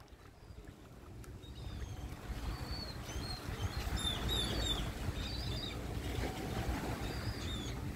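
Wind rumbling on the microphone, growing louder after about a second and a half, with many quick high bird chirps over it.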